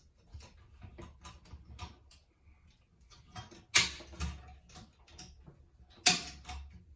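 Metal mounting springs of a bathroom exhaust fan cover being handled and fitted into the fan housing: a run of small clicks and two loud sharp snaps, about four seconds in and again about six seconds in, over a low hum.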